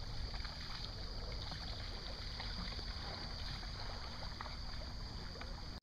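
Kayak paddle strokes in calm water: light splashes and drips from the blade. A steady high buzz of insects runs underneath.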